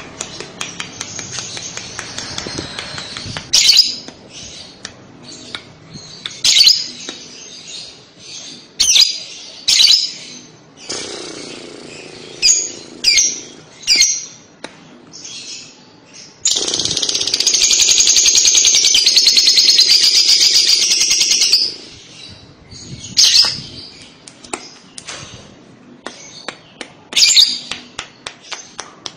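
Lovebird calling: sharp, shrill chirps at irregular intervals, and in the middle one long, loud, rapid chattering trill of about five seconds, the 'kekek' chatter that hobbyists play to get young lovebirds to answer.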